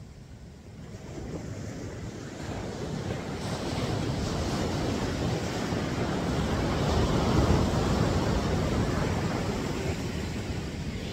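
Ocean surf on a beach: a wave builds over several seconds, is loudest past the middle and eases off near the end, with wind buffeting the microphone.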